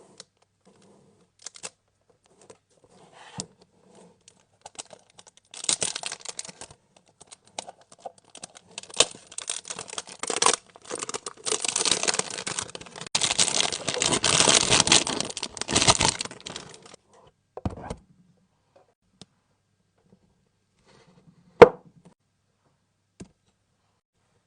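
Packaging being torn open and crinkled by hand: scattered light clicks, then a long stretch of irregular tearing and crinkling. A single sharp knock near the end is the loudest sound.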